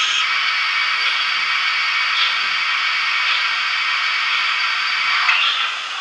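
Steam hiss from an HO-scale BR 44 model locomotive's DCC sound decoder as the model runs slowly, with faint chuffs about once a second.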